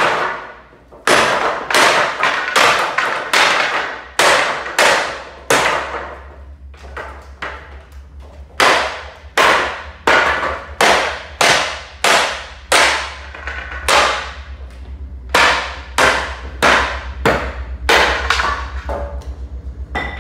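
Hammer blows on a wooden pallet as the boards are knocked loose from the runners: a long series of sharp wooden knocks, about two a second, with a short pause partway through.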